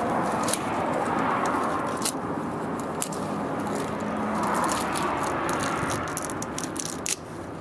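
Gusting wind that swells and fades twice, with scattered light clicks and crackles over it.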